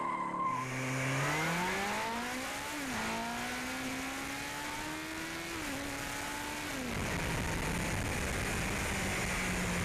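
Yamaha R1 sport bike's inline-four accelerating hard through the gears, heard from the rider's seat: the engine note climbs, drops at shifts about three and six to seven seconds in, then holds a steady pitch under heavy wind noise on the microphone. In the first half second, a car's tyres squealing in a burnout.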